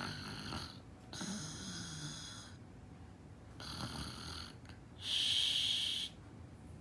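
A sleeping woman snoring, four rasping snoring breaths about a second and a half apart, the loudest about five seconds in.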